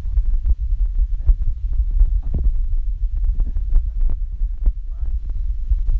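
Strips of beef frying in oil in a pan, with irregular pops and crackles over a loud, steady low rumble.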